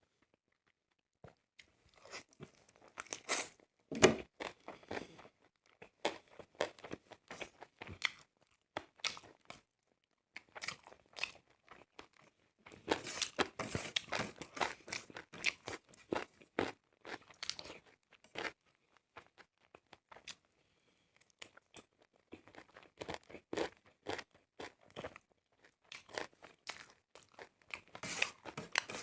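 A person chewing and crunching food close to the microphone, in irregular runs of crisp, wet crunches broken by short pauses; a sharp bite about four seconds in is the loudest.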